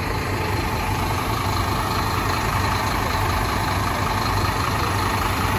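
Scania K310 coach's rear-mounted diesel engine idling steadily with a low, even hum.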